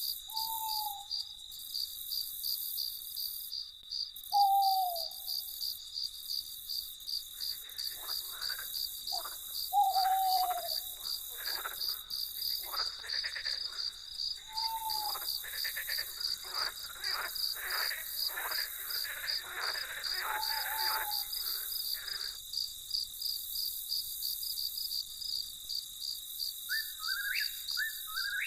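Crickets trilling steadily in a night chorus. Over it come a few short falling calls from another animal, a run of rapid repeated calls from about eight to twenty-two seconds in, and a few rising chirps near the end.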